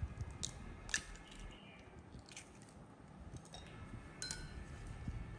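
An egg cracked and tipped into a bowl of raw chicken pieces: a few faint clicks and soft wet squishing sounds.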